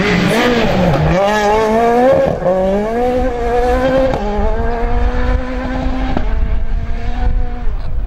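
Ford Fiesta rally car engine revving hard and accelerating away on gravel, climbing in pitch through the gears with sharp upshifts about two, four and six seconds in. It fades near the end.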